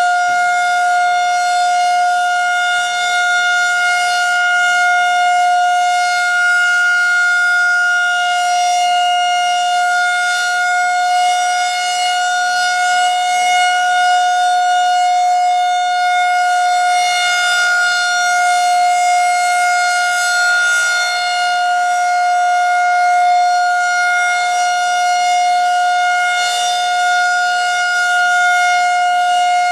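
Federal Signal 2001-130 electromechanical outdoor warning siren sounding the steady Alert signal: one loud unbroken tone that holds its pitch, swelling and fading slightly as the rotating head sweeps past.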